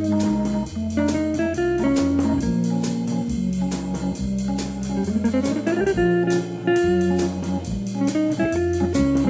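Instrumental jazz blues recording, with guitar and Hammond organ over a bass line and steady cymbal strokes. About halfway through, a melody note slides upward.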